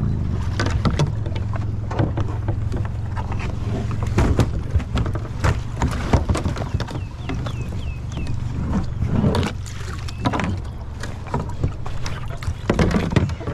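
Water splashing and sloshing around plastic kayaks during a T-rescue of a swamped sit-inside kayak, with scattered hollow knocks of hulls and paddles over a steady low rumble.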